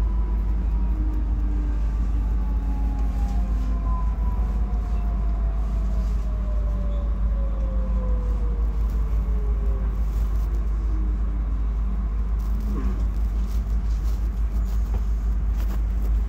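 DB Class 430 S-Bahn electric multiple unit running, heard from inside the car: a steady low rumble from the running gear, with the electric drive's whine falling slowly in pitch through most of the clip.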